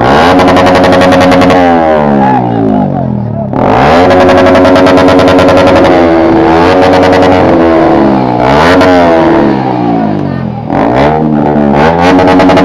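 Several motorcycle engines revving hard together, their pitch climbing and dropping again and again, with short lulls between bursts.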